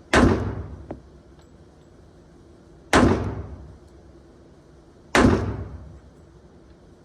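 Three Glock pistol shots, slow and unevenly spaced, each a sharp crack with a short echoing tail.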